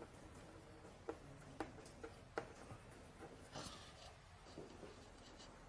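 Faint taps and scratches of writing on a board, a few short ticks and one brief scratchy stroke, in a quiet small room.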